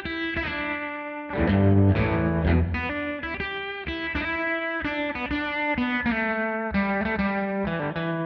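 Electric guitar music, a mix of chords and single-note lines with a touch of overdrive.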